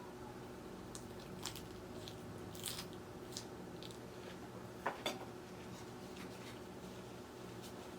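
Someone biting and chewing crunchy raw salad vegetables: scattered crunches and clicks, the loudest a pair of sharp clicks about five seconds in, over a faint steady hum.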